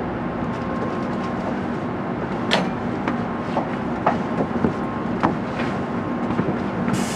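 Steady rumble and hum inside an N700A Shinkansen car as it comes to a stop at a station, with a few sharp clicks and knocks about halfway through.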